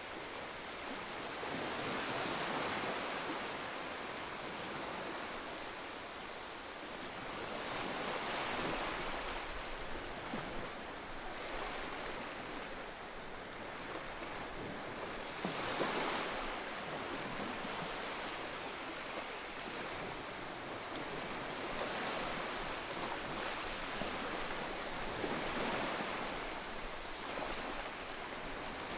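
Ocean waves breaking and washing on the shore, a steady surf with swells that come and go every several seconds.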